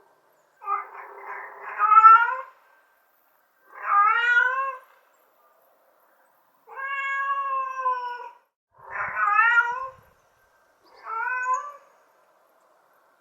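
Domestic cat meowing five times, each a pitched call of about a second with silent gaps between; the third meow is the longest and drawn out, falling slightly at its end.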